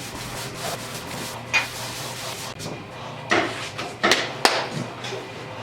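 A steady rubbing, scraping noise on wood that stops about halfway through, followed by three sharp knocks.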